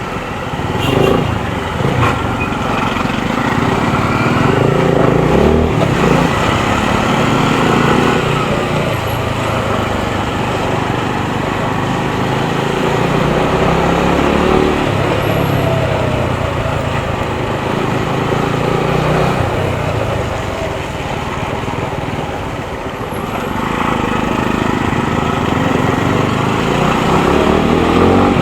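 TVS Apache RTR 200's single-cylinder engine running while riding in traffic, its pitch rising and falling several times with throttle and gear changes.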